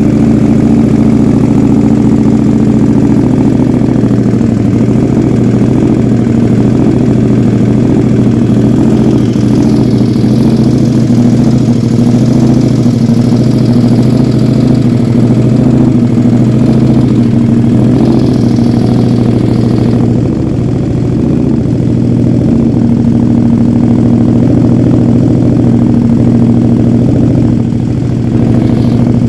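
KTM 1290 Super Duke R Evo's V-twin engine idling steadily through a MIVV X-M5 titanium slip-on exhaust, loud and even, with a slight dip in level about two-thirds of the way through.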